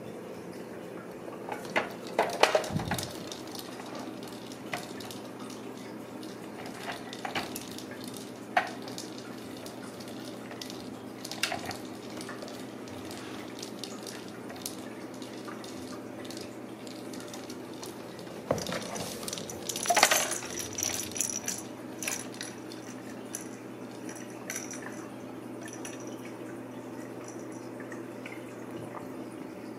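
Clear plastic hamster ball, with a small ball loose inside, rolling and knocking on a hardwood floor as kittens bat it: scattered plastic clicks and clacks, busiest about two seconds in and again around twenty seconds in, over a steady low hum.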